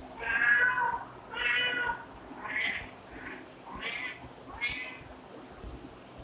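Domestic cat meowing repeatedly: about five meows roughly a second apart, the first two loudest and the later ones fainter.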